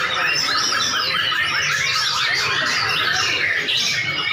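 Several white-rumped shamas (murai batu) singing at once in a song contest, a dense, unbroken stream of fast whistles, warbles and chirps.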